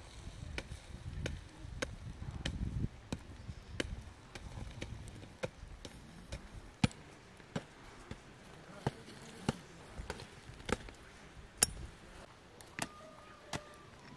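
A small hatchet chopping into a heap of dry earth clods, giving a sharp knock every half second or so.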